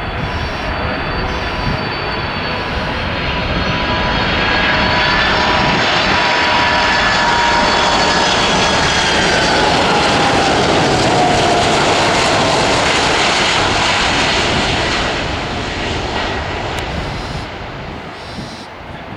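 Jet airliner passing close by: the engine noise builds, peaks in the middle and fades away, while the engines' whine drops in pitch as the plane goes past.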